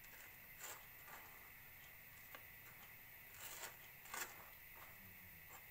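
Faint scrapes and light clicks of a metal spoon spreading mayonnaise on a slice of bread on a ceramic plate, a handful of them, the loudest about four seconds in, over a faint steady background hiss.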